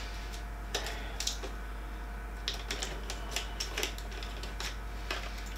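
Small metal screws and printer-kit fittings clicking and ticking as they are handled, about a dozen light, irregular clicks.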